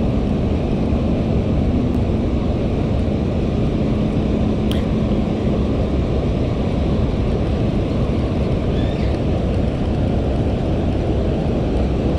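Steady roar of water pouring through a dam's open spillway gates and churning in the tailwater below.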